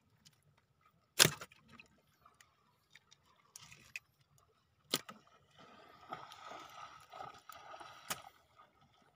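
Freshly caught fish flapping among the net in the bottom of a boat: a few sharp slaps and knocks, the loudest about a second in, with faint rustling in the second half.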